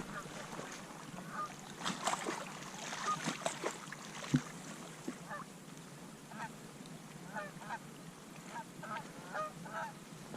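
Geese honking: a run of short, faint calls repeating through the second half, over a low steady hiss.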